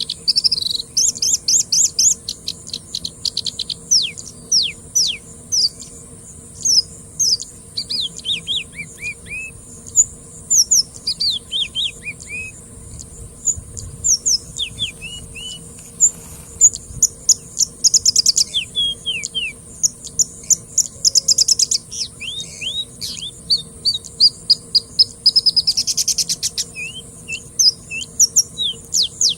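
A bushlark singing a long, varied song of quick falling whistled notes, broken by rapid trills about two-thirds of the way through and near the end. A faint steady high hiss and a low hum sit underneath.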